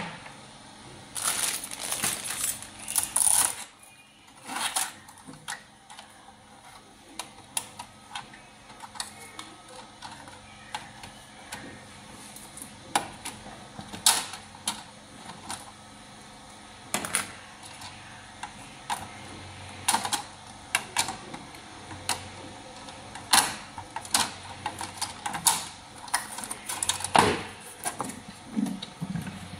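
Hard plastic parts of a fiber optic distribution box clicking and knocking as they are handled: lid, splice trays and cable-port pieces. A dense patch of rustling and clatter comes in the first few seconds, then single clicks and taps keep coming.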